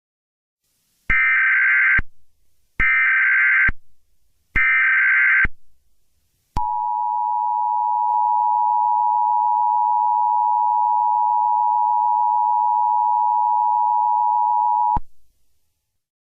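Emergency Alert System alert tones: three bursts of SAME header data tones, each about a second long, then the two-tone EAS attention signal held steady for about eight seconds before cutting off. This is the opening of an emergency alert broadcast, just before the spoken message.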